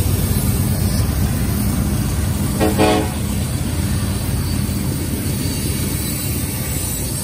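Union Pacific freight train's diesel locomotives rumbling steadily as they pass and pull away, the sound easing slightly as they move off. A brief single horn toot sounds about three seconds in.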